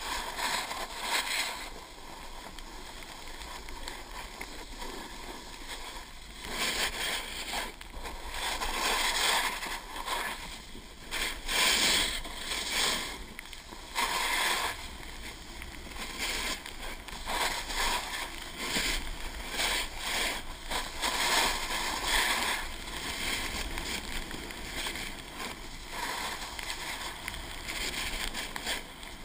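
Snowboard sliding and carving down a packed-snow piste, its edges hissing and scraping in surges that swell and fade with each turn, over a low wind rumble on the camera's microphone.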